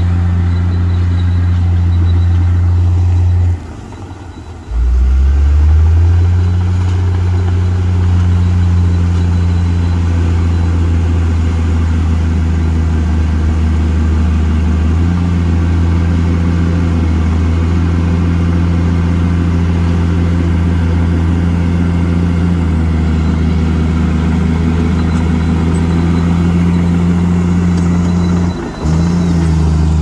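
Komatsu crawler bulldozer's diesel engine running under load as the blade pushes soil and rock, a steady low drone. The sound drops away briefly about four seconds in and comes back with the engine revving up, and dips again briefly near the end.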